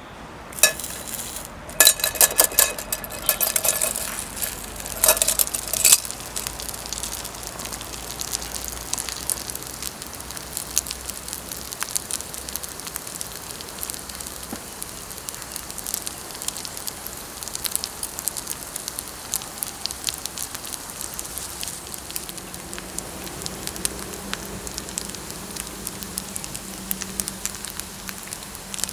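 Pepper rice sizzling on a hot pan: a steady hiss with scattered crackles. Loud metal clanks with a brief ring come during the first six seconds, like a utensil striking the pan.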